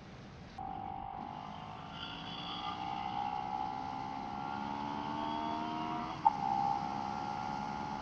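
Motorcycle engine accelerating, its pitch rising slowly for several seconds, then a brief break about six seconds in as it shifts up, after which it runs at a steady pitch.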